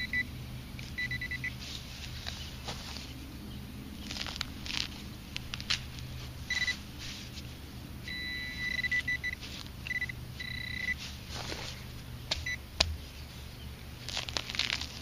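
Metal detector giving short, repeated high beeps as metal in the dug soil comes near it, signalling the buried target. Between the beeps, soil and roots crackle and scrape as they are pulled apart by hand.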